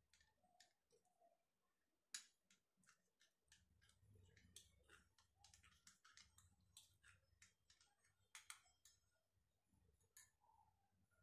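Faint, irregular clicks and taps of a metal spoon knocking and scraping against a small metal bowl while a thick paste is stirred, busiest in the middle and thinning out near the end.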